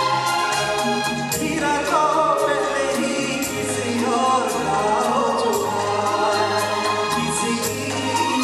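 Male singer singing a Hindi film song over a live band of drum kit, keyboard and bass guitar, with steady drum beats.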